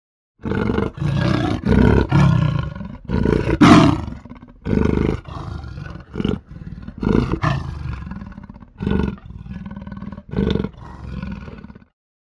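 Leopard roaring: a series of about a dozen short calls, each under a second, broken by brief gaps.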